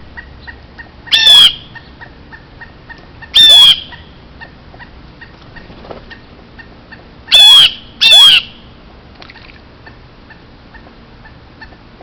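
Pileated woodpecker calling: four loud, harsh single notes, one about a second in, one about 3.5 s in and a close pair near 7.5 and 8 s.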